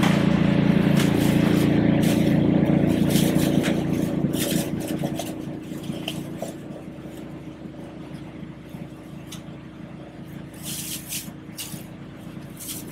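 Steady low machine hum, loud at first and easing off after about five seconds, with light clatter and scraping of containers and utensils.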